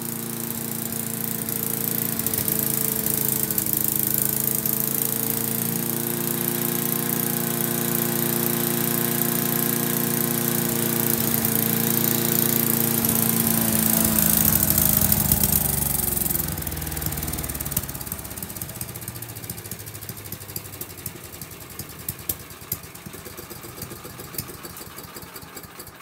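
Tecumseh small engine of a Troy-Bilt wood chipper running steadily, staying lit after its carburetor was cleaned. About sixteen seconds in it cuts out and winds down, leaving a few scattered clicks.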